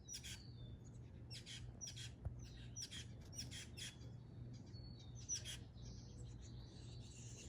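Nestling birds chirping in their nest: a faint run of short, high-pitched chirps and squeaks, repeated irregularly throughout.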